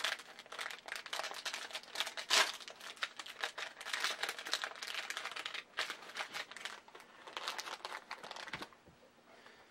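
Small advent calendar wrapper crinkling and tearing as it is picked open by hand, a dense run of crackles with one sharper crack a couple of seconds in, dying away near the end.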